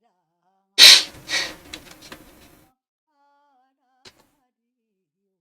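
A person sneezes once, loudly, trailing off into a few smaller breaths, followed a couple of seconds later by a single short click.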